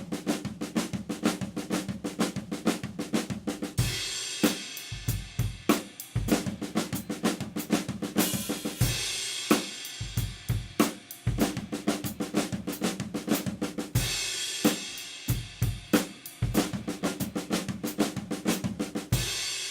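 Drum kit played in fast Swiss Army triplet flam patterns, the right hand sweeping from the snare around the toms. About every five seconds a cymbal crash lands together with the bass drum, four times in all.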